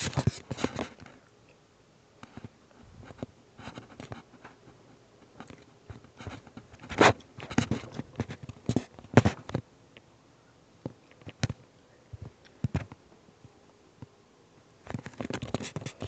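Irregular scratching, rubbing and clicking of a phone being handled close to its microphone, in scattered bursts that cluster about halfway through and again near the end.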